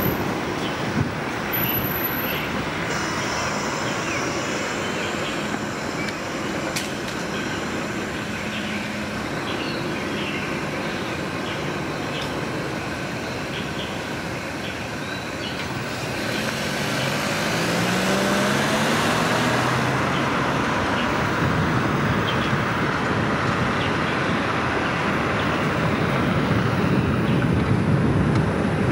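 City street traffic at an intersection: a steady rumble and hiss of vehicles, with one engine's note rising as it accelerates a little past halfway, and the traffic growing louder near the end.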